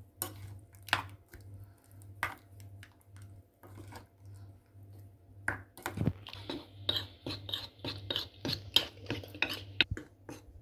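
Silicone spatula stirring chicken pieces through a wet buttermilk marinade in a glass bowl, with occasional knocks against the glass. About six seconds in the stirring becomes busier, a quick run of wet squelches and clicks.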